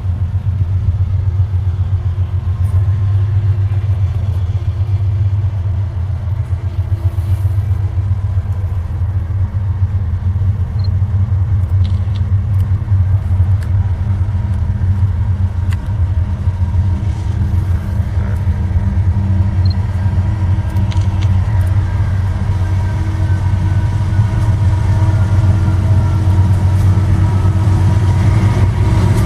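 Diesel locomotive engine running steadily, a loud low drone.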